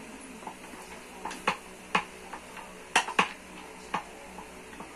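Sharp clicks and knocks of a hard plastic office-chair armrest being handled and fitted against the seat, a handful in all, the loudest a close pair about three seconds in.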